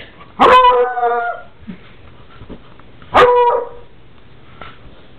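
A dog howling twice: a long pitched call of about a second starting half a second in, then a shorter one about three seconds in.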